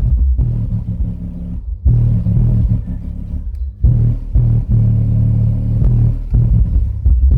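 Bass-heavy music played loud through a home stereo with a 12-inch subwoofer: deep held bass notes that change every second or two, over short drum hits.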